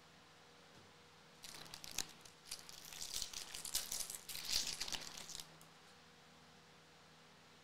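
Foil wrapper of a Bowman Jumbo baseball card pack crinkling as it is torn open and handled. The crinkling starts about a second and a half in and stops about four seconds later.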